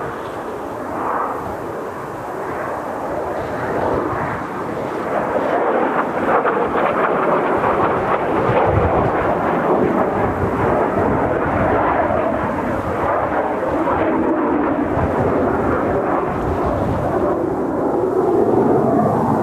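Jet noise from Kawasaki T-4 jet trainers flying overhead, swelling about five seconds in and staying loud, with strong wind buffeting the microphone.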